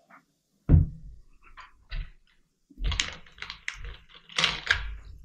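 Knocks and thuds of a large plastic soda bottle and a glass mug being handled and set down on a wooden table, a loud thud about a second in and a cluster of knocks near the end.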